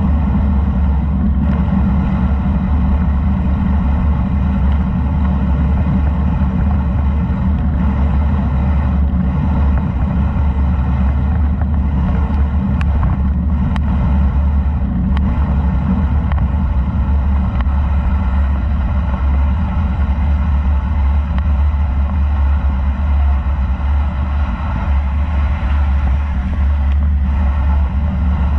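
Steady low wind rumble on the microphone of a camera riding a bicycle fast downhill, with tyres hissing on wet concrete. A few faint ticks come in around the middle.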